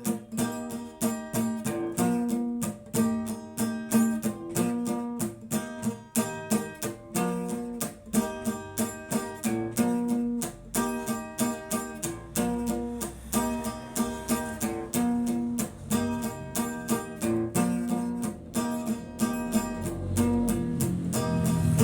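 Instrumental music led by a rapidly picked acoustic guitar, a steady stream of short plucked notes several per second.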